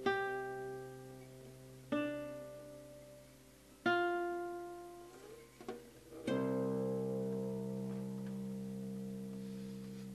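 Closing guitar bars of a song: a chord struck about every two seconds and left to decay, then a last chord a little past six seconds in that rings out and slowly fades.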